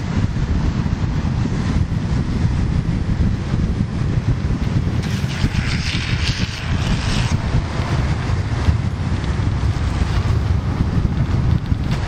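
Wind buffeting the microphone of a camera moving at downhill longboarding speed: a steady low rumble, with a brighter hiss for about two seconds around the middle.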